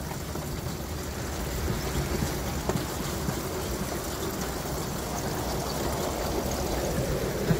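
Pedal-powered rail bike rolling along the railway track: a steady rushing noise of steel wheels running on the rails.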